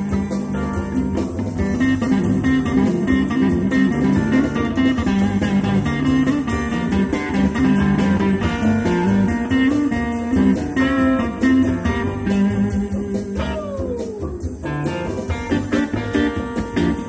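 Live blues band playing, led by electric guitars over a steady bass line, with one long note sliding down in pitch late on.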